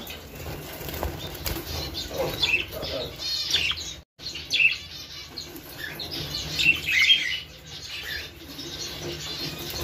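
A flock of budgerigars chirping and chattering in short, quick calls, with some wing flapping. The sound drops out briefly about four seconds in.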